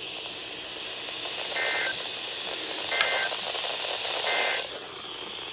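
Three short bursts of EAS/SAME digital data tones, the warbling two-tone code of the end-of-message signal closing the weekly test, each about a third of a second long and a little over a second apart, over steady weather-radio static. A sharp click lands with the second burst.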